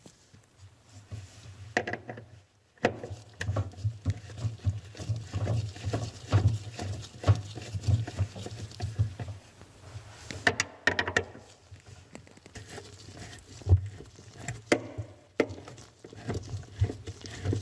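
Irregular clicks, scrapes and knocks of hand work on a GE refrigerator ice maker: a 1/4-inch nut driver loosening the ice maker's mounting screws, with the plastic unit rattling against its mount.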